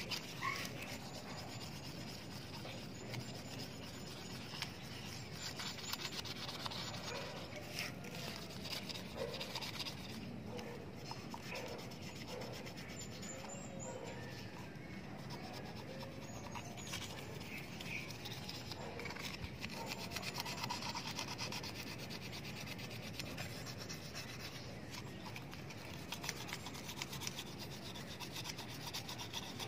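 Fine 1000-grit sandpaper rubbed by hand in straight up-and-down strokes on a Honda Beat scooter's metal gear-oil case, a soft steady scraping that rises and falls with the strokes. It is wet-and-dry sanding of the dirty case, ready for metal polish.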